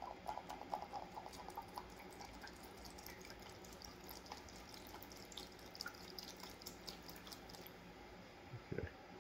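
Odorless mineral spirits poured from a metal can into a plastic bowl of metal diff parts: a faint trickle with small drips and splashes. A soft thump near the end.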